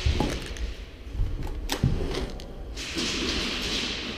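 An airsoft rifle being handled during a magazine change: a few sharp clicks and knocks, then a rustling hiss of gear about three seconds in.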